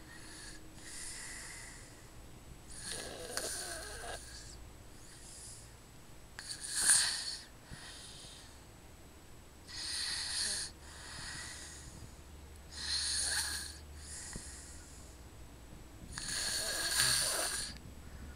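Snoring: about five loud, airy snoring breaths roughly three seconds apart, each followed by a fainter breath. The one about seven seconds in is the loudest.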